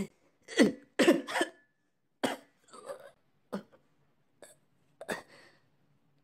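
A voice coughing and gagging in a string of short bursts, loudest in the first second and a half, then fading into weaker coughs: the character is choking on filth.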